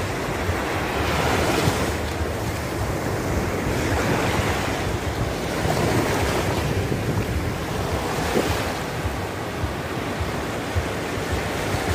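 Small sea waves breaking and washing up the sand at the water's edge, surging about every four to five seconds, with wind buffeting the microphone.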